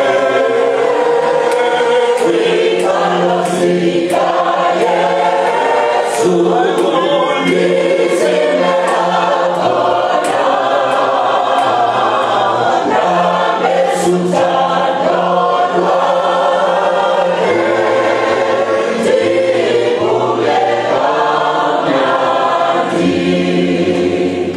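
Church congregation singing a Seventh-day Adventist hymn together in isiXhosa, many voices holding long notes over a low bass line.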